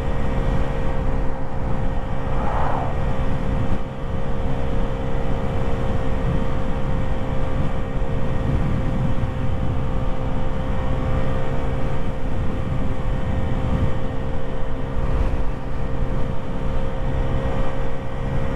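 Lexmoto Echo 50cc scooter engine held flat out at its 30 mph top speed, running at one steady, unchanging pitch, with wind rumbling on the microphone.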